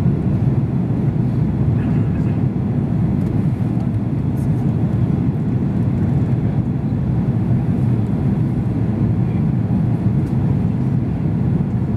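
Steady low rumble of an Airbus A330 airliner's cabin on descent: engine and airflow noise heard from a window seat.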